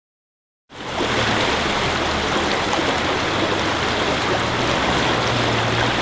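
Fast-flowing river water rushing, cutting in suddenly about a second in, with a steady low hum underneath.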